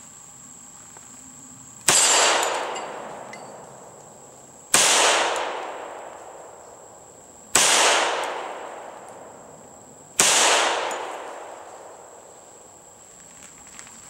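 Hi-Point .45 ACP pistol firing four slow, evenly spaced shots, about three seconds apart, each followed by a long echo that dies away over a couple of seconds.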